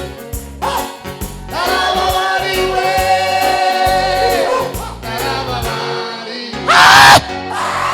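Congregation singing a gospel worship song in long held notes over a steady drum beat, with a loud shout breaking in about seven seconds in.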